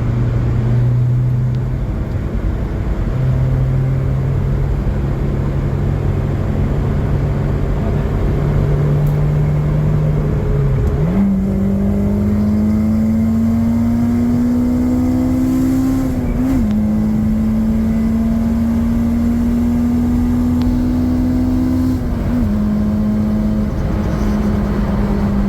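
2004 Honda S2000's 2.2-litre four-cylinder engine, still on its stock airbox, running while the car is driven, over road noise. The engine note holds low and steady, jumps sharply higher about eleven seconds in, then climbs slowly, with brief dips in pitch near sixteen and twenty-two seconds.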